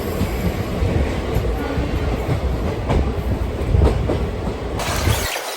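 Express passenger train running at speed: a steady rumble and rush of wheels on the rails, with occasional sharp clacks over rail joints. Near the end the deep rumble drops away, leaving a higher hiss.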